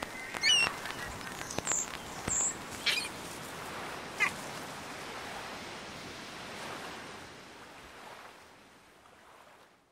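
Sea surf washing steadily, with a handful of short gull cries over it in the first few seconds; the whole fades out near the end.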